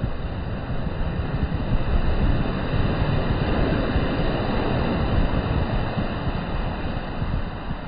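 Sea surf: waves breaking and washing up a sandy beach, with a low wind rumble on the microphone. The wash grows louder in the middle and eases near the end.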